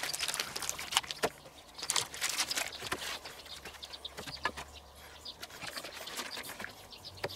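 Scattered light clicks, taps and rustles of hands handling food on plates as wooden skewers are pushed through assembled burgers, busiest in the first few seconds and thinning out later.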